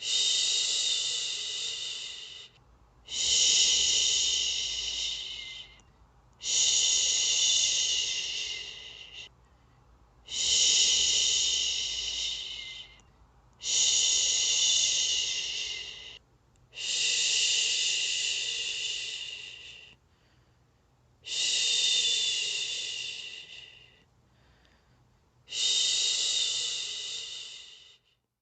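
A person's voice making long 'shhh' shushing sounds, the kind used to lull a baby to sleep. Eight shushes follow one another with about a second's pause between. Each one starts abruptly and fades away over two to three seconds.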